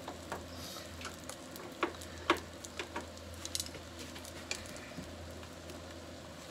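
Rolled egg omelette frying gently in a frying pan, a faint steady sizzle under scattered light clicks of wooden chopsticks tapping against the pan, two sharper clicks about two seconds in.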